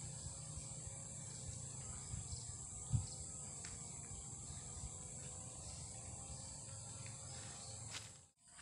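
Faint lakeside ambience with a steady high insect drone, broken by a single low thump about three seconds in. The sound cuts out briefly near the end.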